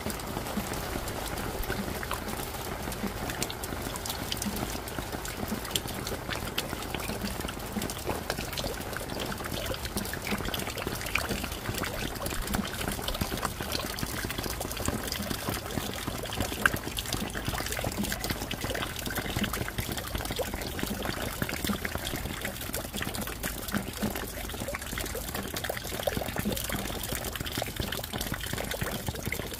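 Steady rain falling, a dense patter of close drops over a constant wash, with water trickling and running.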